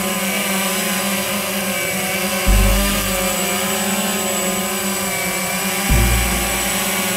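Walkera QR X350 Pro quadcopter hovering close by, its electric motors and propellers humming steadily. Twice, about two and a half and six seconds in, a deep low rumble of air buffets the microphone and fades over about a second.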